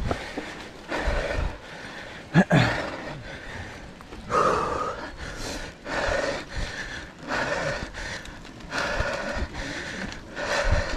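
A mountain biker breathing hard while pedalling uphill, heavy panting about once a second. A short, louder sound about two and a half seconds in.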